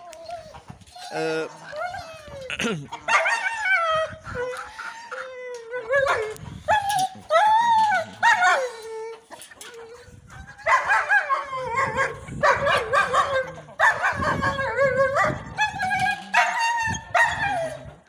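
A penned dog barking, yelping and howling again and again, with drawn-out rising-and-falling howls and a falling whine among shorter yelps.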